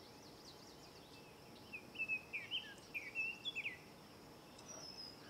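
A songbird sings a short phrase of quick chirping notes that glide up and down, from just under two seconds in to nearly four. Under it, faint steady outdoor ambience with thin, high chirping.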